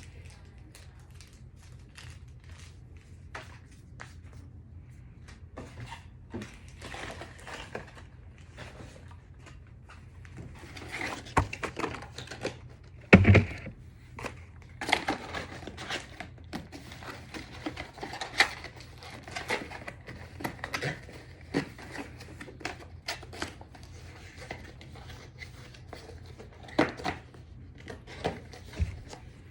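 Handling of SimpliSafe security system parts and their packaging: irregular small plastic clicks and knocks with bouts of rustling, and a single louder thump about 13 seconds in.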